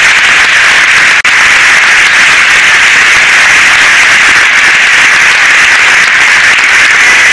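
Audience applauding, a loud, steady wash of clapping with a brief dropout about a second in.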